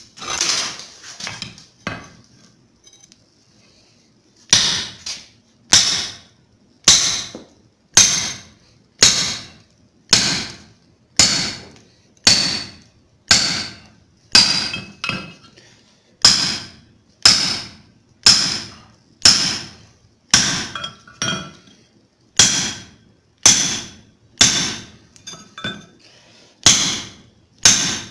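Hammer blows forging steel punch stock on an anvil: a few strikes, a brief pause, then a steady run of blows about one a second, each with a bright metallic ring.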